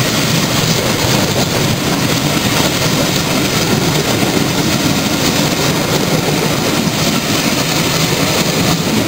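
Passenger coaches of a train passing close by, with a steady rumble and rush of wheels on the rails.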